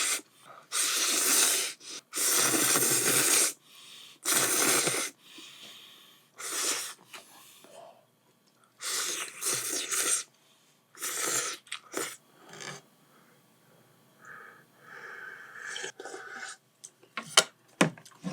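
Jjajang noodles slurped in repeated long, noisy pulls, the loudest in the first few seconds, with quieter chewing and small mouth clicks between.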